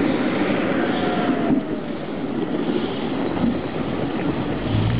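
Wheeled BTR armoured personnel carrier driving up a gravel street toward the microphone: a steady, loud engine-and-road noise, with a low engine hum coming in near the end as it draws close.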